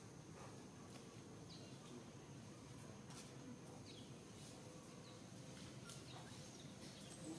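Near silence: faint outdoor ambience with a steady high hum and a few short, high falling chirps scattered through it.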